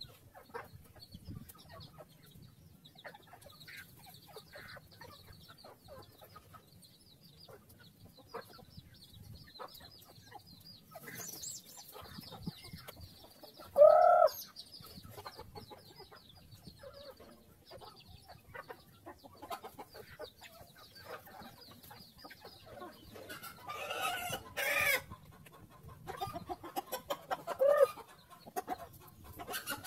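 Free-range chickens and roosters clucking as they feed on scattered grain, over many quick taps. A loud, short squawk comes about halfway through, and longer calls come near the end.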